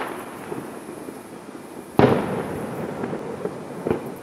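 Aerial fireworks shells bursting in the sky. A sharp boom comes about two seconds in and echoes away, then a smaller bang follows near the end.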